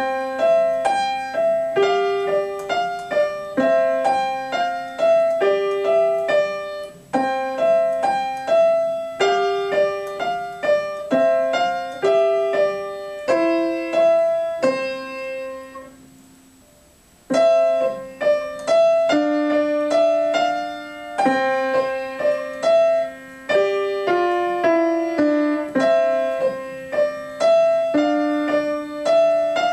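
Solo upright piano played from sheet music: a simple melody of single notes over held bass notes, in short repeating phrases. The playing begins at once, breaks off for about a second about halfway through, then starts again.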